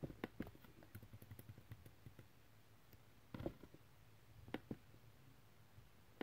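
Near silence broken by faint scattered clicks and taps over a low steady hum.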